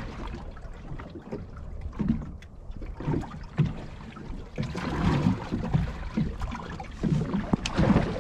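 Water slapping and lapping against the hull of a small boat drifting at sea, in uneven splashes over a steady low rumble.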